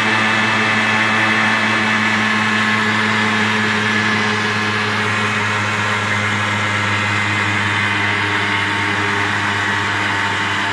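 Engine of a small handlebar-steered vehicle running steadily while driving, heard from inside its enclosed cab: an even, unchanging drone.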